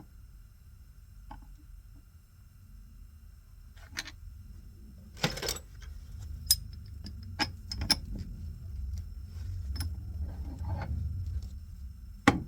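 Scattered sharp metallic clinks and knocks from metal tools or parts being handled, about seven in all, the loudest near the end, over a low hum that grows louder from about halfway in.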